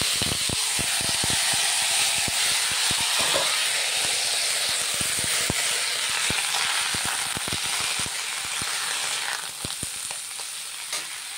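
Shredded cabbage sizzling in hot oil in a steel kadai, just tipped in, while a steel spatula clicks and scrapes against the pan as it is stirred. The sizzle eases off a little near the end.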